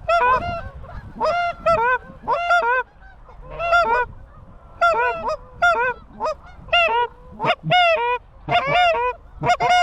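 Geese honking: a rapid series of short, sharp honks and clucks, roughly two to three a second, with a brief lull about three seconds in and quicker, denser honking in the second half.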